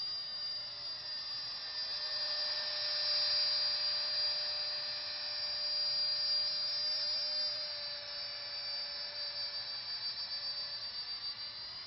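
Mono-Phan 8 Triport thrust-vectoring nano drone in flight: its electric motor and fan give a steady, high whine made of several pitches, growing louder toward the middle and then easing off, with the pitch shifting near the start and again near the end.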